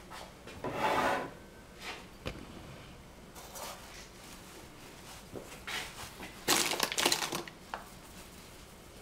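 Kitchen handling sounds: a linen cloth rustled, an aluminium pizza peel set down on the counter with a few soft knocks, and a hand rubbing flour across the peel's metal face. The louder scraping, rubbing passages come about a second in and again about two-thirds through.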